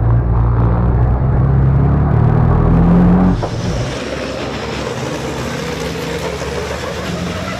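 Race truck turbodiesel engine heard from inside the cab, pulling hard with its note climbing under acceleration. About three seconds in this cuts to the trackside sound of several race trucks' engines running at speed as they pass.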